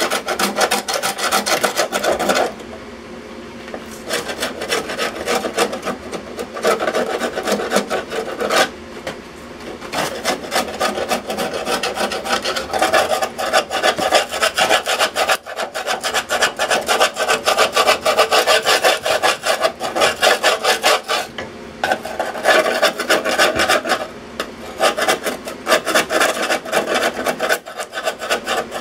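Hand scraper rasping over the rusted top of a steel electrical box in rapid back-and-forth strokes, with a few short pauses: scraping off loose rust down to the remaining metal.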